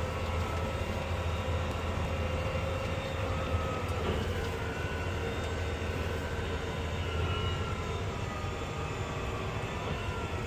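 Case IH tractor engine running steadily under load, heard from inside the cab as a low drone with faint whining tones above it.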